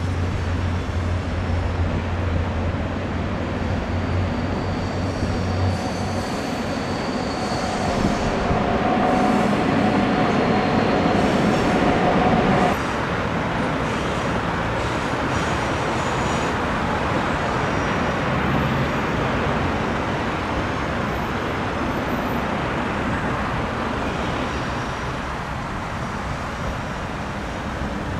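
Electric passenger trains rolling over railway bridges: a steady rumble of wheels on the track. In the first part a steady tone sits over the rumble and cuts off abruptly about twelve seconds in, after which a double-decker electric train passes with an even rolling noise.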